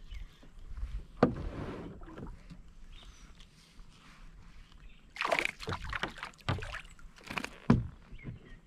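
Water splashing in a run of sharp bursts about five to seven seconds in, from a hooked fish thrashing at the surface by a kayak, with sharp knocks about a second in and near the end.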